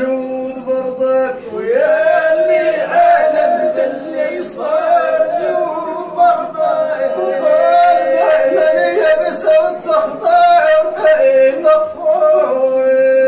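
Men singing a Moroccan Rasma devotional chant from the Zagora region, in long held notes with an ornamented, wavering melody over them.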